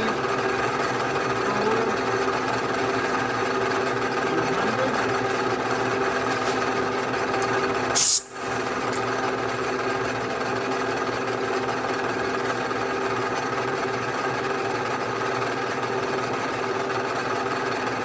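Bridgeport-type milling machine running with a steady mechanical hum and whine. A sharp click about eight seconds in is followed by a brief dip in the sound.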